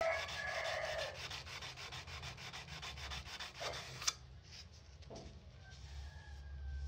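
Sandpaper on a hand block rubbed in quick back-and-forth strokes along a steel knife blade clamped in a vise, several strokes a second. The sanding stops with a sharp click about four seconds in, followed by fainter handling sounds.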